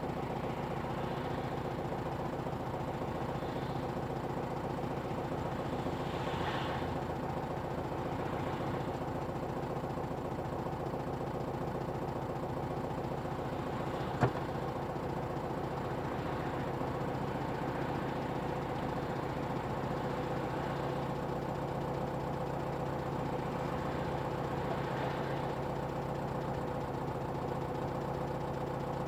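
Car engine idling steadily, with one sharp click about halfway through.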